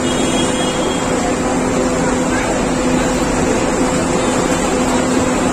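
A steady mechanical drone with a constant low hum, over an even wash of street noise.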